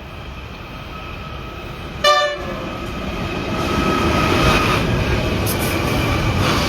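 A passenger train approaches and runs past, its rumble growing louder over the first few seconds. About two seconds in, one short toot from a locomotive is the loudest moment.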